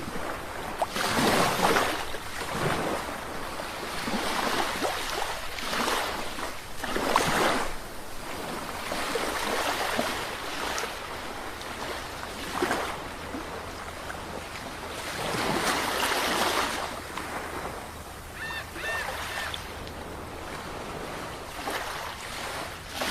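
Sea waves washing onto the shore, each wave rising and falling away every two to three seconds. Near the end a few short high chirps sound briefly.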